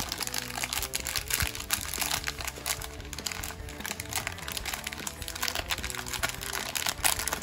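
Clear plastic poly bag crinkling as fingers handle and work it open, with irregular crackles. Background music plays under it.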